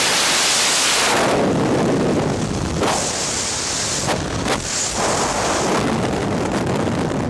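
Freefall wind rushing loudly over a skydiver's helmet-camera microphone. About a second in the rush turns duller, and it dips briefly a few times in the middle.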